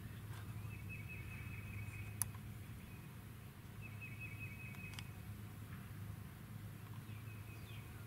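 A bird's high, rapid trill, repeated three times in short runs over a steady low hum. Two sharp clicks come about two seconds in and again near the middle.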